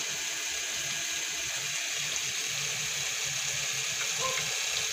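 Coconut-milk pork stew simmering in a wok, a steady hiss with faint irregular low bubbling.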